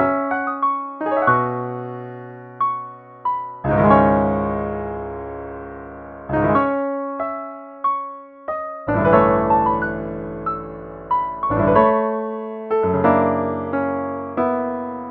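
Solo piano playing a slow neo-impressionistic prelude: single notes and sustained chords, with deep bass chords struck about four and nine seconds in.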